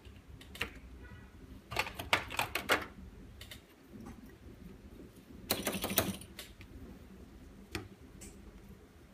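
Light clicks and clatter of parts being handled in an alignment mold during phone screen refurbishment, in two short clusters, about two seconds in and again about five and a half seconds in, with single clicks before and after.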